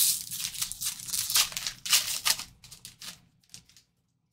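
Trading card pack wrapper torn open and crinkled in the hands, an uneven rustle that stops abruptly near the end.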